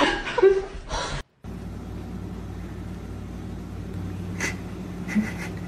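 A brief voice at the start, then a steady low machine hum, broken near the end by two short high-pitched chirps.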